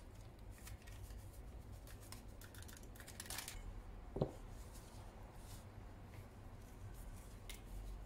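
Faint crinkling and rustling as a foil spice packet is shaken out over raw chicken in a steel bowl and a plastic-gloved hand begins working the spice into the meat. One short knock about four seconds in.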